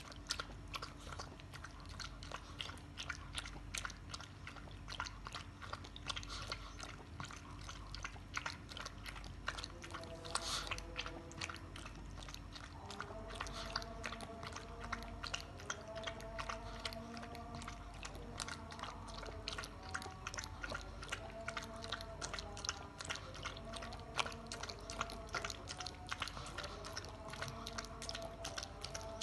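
Shih tzu lapping milk from a plate: a continuous run of rapid, wet tongue clicks and slurps. Faint background music with a stepping melody comes in about halfway through.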